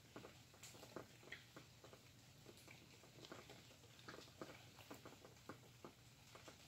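Faint rain: scattered drops pattering and ticking at uneven intervals.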